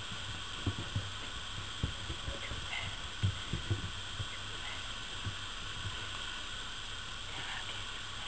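Puppies scuffling and tugging at a rag toy on wood-shaving bedding: irregular soft thumps over a steady hiss.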